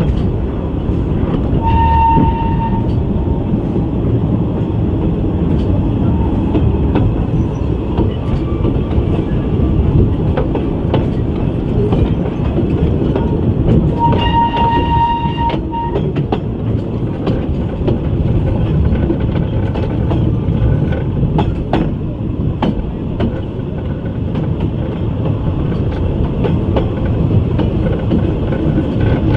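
Narrow-gauge passenger carriage rumbling along the track, with wheel clicks over the rail joints. The steam locomotive Gelert's whistle sounds twice on one clear note: a short blast about two seconds in and a longer one about fourteen seconds in.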